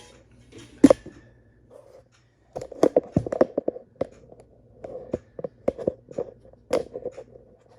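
Knocks, taps and light clatter of a bathroom exhaust fan's removed motor assembly being handled: one sharp knock about a second in, then a run of irregular light knocks and clicks.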